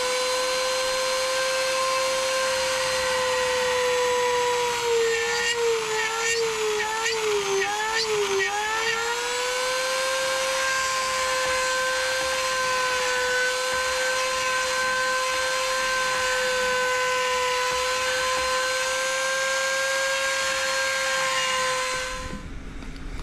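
A Dremel rotary tool running at high speed with a steady whine while it cuts a hole in the motorcycle's plastic fairing trim. A few seconds in, its pitch dips and wavers as the bit bites into the plastic, then it steadies until the tool is switched off near the end.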